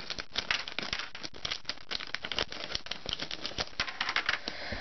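Crinkling and crackling of a LEGO Minifigures blind-bag packet being squeezed and handled, a dense run of small rapid clicks.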